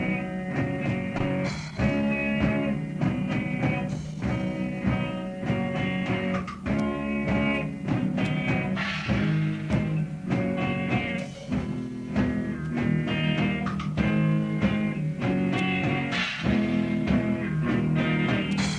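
Punk rock band playing a song: guitar with drums.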